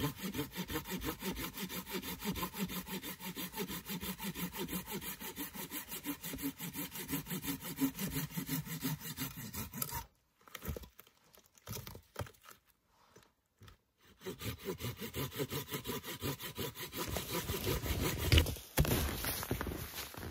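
Folding hand saw cutting through a dead log in quick, even back-and-forth strokes. The sawing stops for a few seconds about halfway, starts again, and a louder knock comes near the end.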